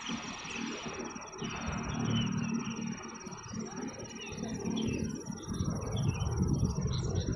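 Open-air pond-side ambience: a steady, high, pulsing insect trill with scattered faint bird chirps over an uneven low rumble.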